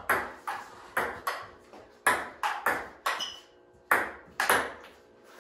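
Table-tennis ball clicking off paddles and the table in a rally: a quick run of sharp taps, a pause about three seconds in, then a few more hits near the end.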